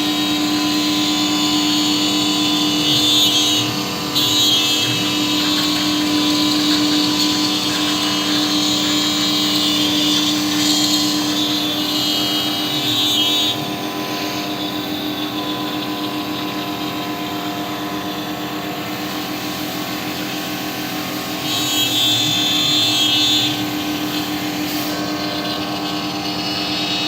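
CNC router spindle running with a steady whine, cutting plastic sheet; a harsher, higher-pitched cutting noise rises for a few seconds at a time, a few seconds in, around the middle and again near the end.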